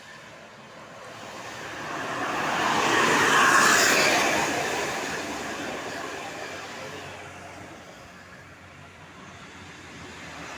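A road vehicle drives past, its engine and tyre noise growing to its loudest about three and a half seconds in, then fading away. No horn sounds.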